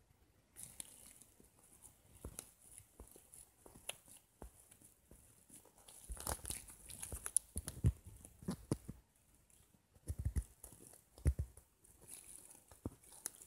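Packaging being handled: crinkling and rustling with scattered clicks and knocks, in irregular bursts that grow louder around the middle and again later on.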